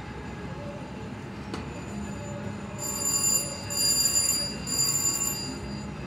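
Casino slot machine sounds over a steady background hum: a click about a second and a half in, then three loud bell-like electronic ringing chimes, each under a second long, from about halfway through.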